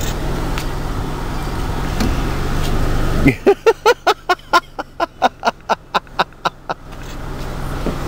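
Car engine running steadily at idle. About three seconds in the hum drops away and a rapid, even run of sharp, ringing taps follows, about five a second for roughly three and a half seconds, fading as it goes, before the hum returns near the end.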